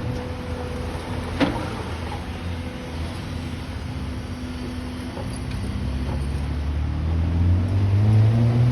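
Excavator's diesel engine running steadily, with one sharp knock about a second and a half in. Over the last few seconds the engine revs up, rising in pitch and getting louder.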